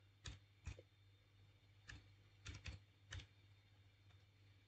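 Faint computer-keyboard typing: a handful of single keystrokes, irregularly spaced, with a quick run of three presses about two and a half seconds in.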